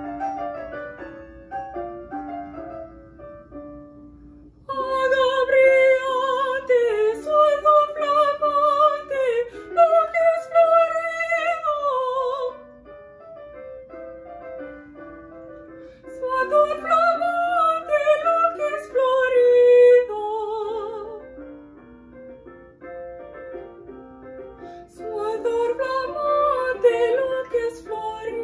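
A woman singing a Spanish Baroque aria in classical style with vibrato, accompanied by piano. The piano plays alone at first, her voice comes in about five seconds in, and she sings three phrases with piano-only passages between them.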